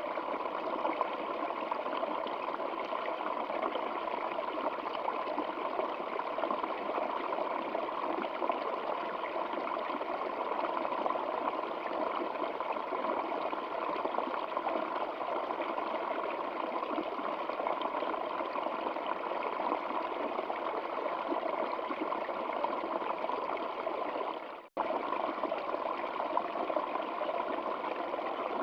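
Stream water flowing steadily, an even wash of water noise with little deep rumble. It cuts out for a split second about three-quarters of the way through.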